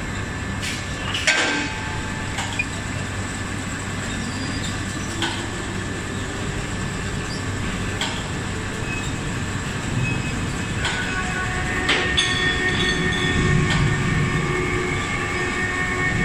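Automatic ring-forging line machinery running, robot arm and CNC ring rolling machine working hot steel: steady mechanical noise with a low hum and a few sharp metal knocks. Whining tones from the machinery grow stronger about two-thirds of the way through.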